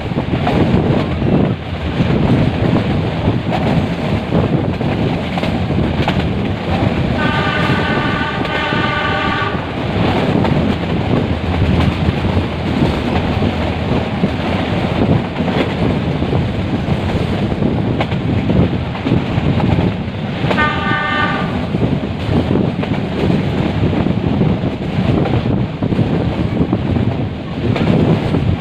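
Metre-gauge passenger train running, with the locomotive's horn sounding twice: a long blast about a quarter of the way in and a short one about two-thirds through.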